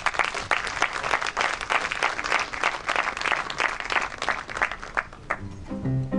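Audience applauding, the clapping thinning out about five seconds in. Near the end a string orchestra starts to play, cellos and basses sounding low notes.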